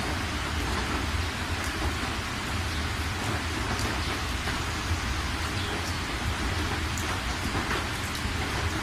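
Heavy rain pelting a car's windscreen and roof, heard from inside the moving car: a steady dense hiss with scattered drop ticks over a continuous low rumble.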